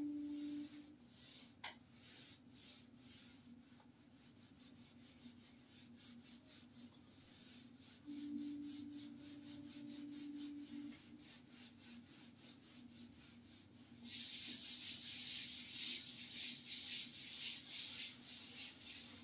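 A whiteboard duster wiping the board in rapid back-and-forth strokes, light at first, then hard scrubbing for the last five seconds or so. A steady low hum sounds at the start and again from about 8 to 11 seconds in.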